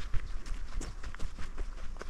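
Footsteps on sandy, gritty ground: an irregular run of light scuffs and taps.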